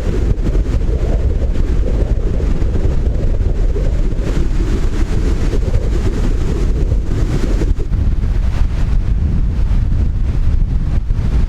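Strong wind buffeting the microphone, a loud steady low rumble.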